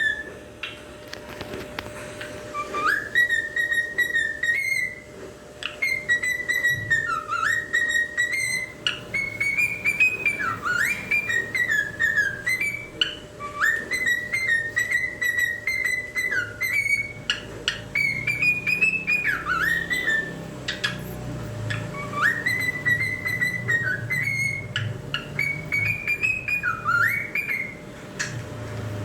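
Cockatiel whistling a tune: a repeated melodic phrase of clear whistled notes, each phrase opening with a quick upward swoop, going on with short pauses between phrases.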